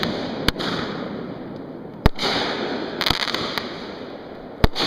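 Consumer fireworks going off: five sharp bangs a second or so apart, with a steady hiss between them.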